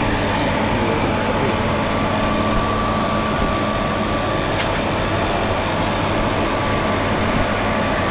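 Steady mechanical hum, engine-like, under a constant dense background din.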